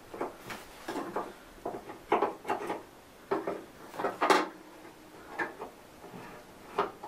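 Irregular knocks, clicks and short scrapes of a motorcycle pannier box and its mounting hardware being handled and shifted on the rack while its Delrin mounts are adjusted, the loudest knock about four seconds in.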